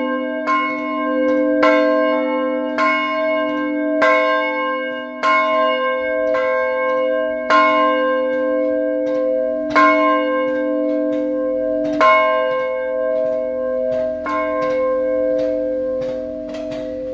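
Bronze church bells in a steel frame, the lower one swinging on its wheel-mounted yoke so that its clapper strikes again and again, about once a second. Each stroke rings on and overlaps the next over a steady low hum. The strokes grow weaker near the end.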